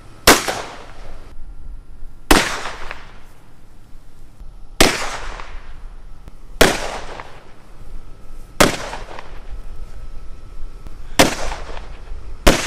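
Seven single gunshots from a firearm, spaced about two seconds apart, each followed by a trailing echo; the last comes just before a rapid string of shots.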